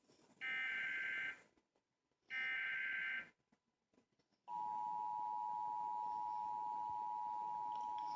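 Emergency Alert System tones. First come two bursts of the SAME digital header, each a warbling data squawk of about a second with a short gap between. About four and a half seconds in, the steady two-tone EAS attention signal (853 and 960 Hz together) starts and holds.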